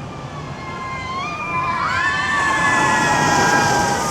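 Riders screaming together as a flume-ride boat goes down the drop, several voices rising in pitch and holding; about halfway in, a rushing splash of water builds under the screams.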